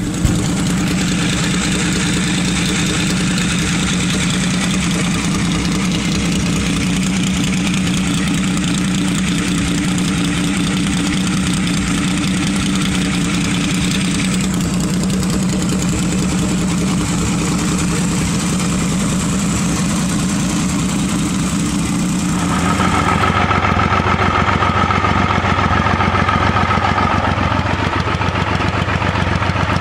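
Triumph Adventurer 900 motorcycle's three-cylinder engine idling steadily. About three-quarters of the way through, the sound changes abruptly to a slightly louder, lower idle.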